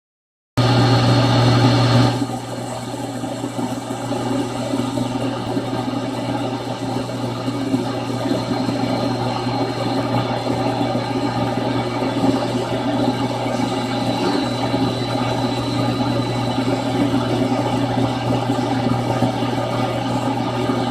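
Radio static: a steady hiss over a low hum, starting suddenly about half a second in, louder for the first two seconds and then settling to an even level.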